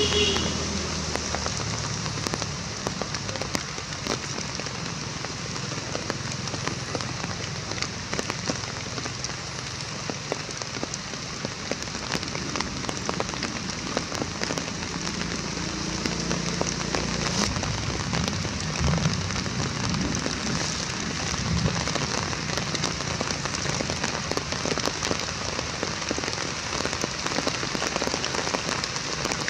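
Steady rain falling, a dense patter of many individual drops.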